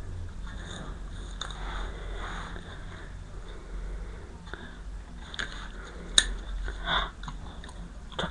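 A dog sniffing and mouthing close to the microphone, with scattered rustles and one sharp click about six seconds in.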